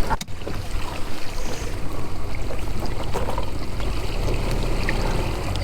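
Steady noise of water and wind with a low rumble underneath, as heard aboard a boat on the water.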